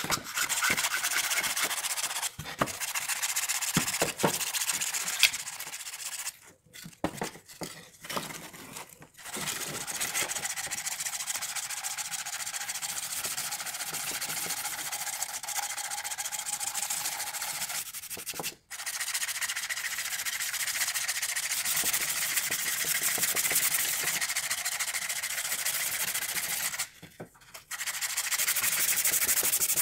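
Hand sanding of weathered wooden lantern frames with a sheet of sandpaper: a steady, scratchy rubbing, broken by a few short pauses.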